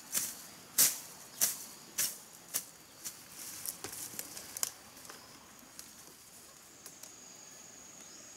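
Machete slashing through ferns and undergrowth: about five sharp cuts a little over half a second apart, then lighter, quicker cuts and rustling. A steady high insect drone comes in near the end.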